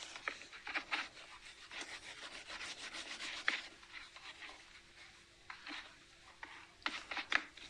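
Whiteboard being wiped clean with an eraser: a quick run of short rubbing strokes that thins out about halfway through, with a few more strokes near the end.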